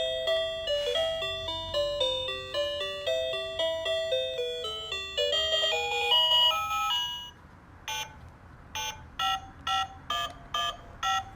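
Toy telephone playing a tinny electronic melody of beeping notes, which stops about seven seconds in. It is followed by about eight short single beeps of different pitches, as its buttons are pressed.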